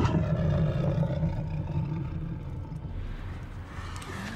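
Tyrannosaurus rex film sound effect: a low, rumbling growl that starts abruptly and slowly fades.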